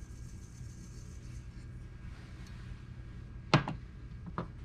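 Two sharp knocks of kitchenware against a mixing bowl, the first loud and the second smaller a second later, near the end, over a steady low hum.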